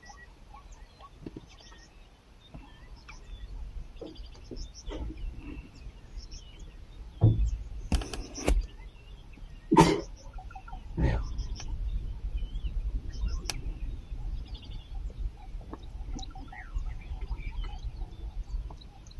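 Open-country ambience with small birds chirping throughout. It is broken by a few short, loud low sounds in the middle, followed by a low rumble.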